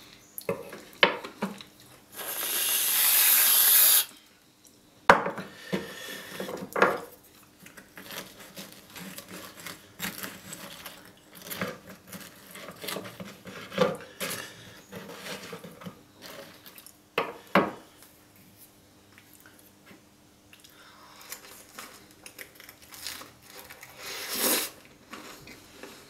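Metal knife and fork clicking and scraping on a wooden cutting board, with chewing of crisp waffle in between. About two seconds in, a loud hiss lasting about two seconds, from whipped cream sprayed out of an aerosol can.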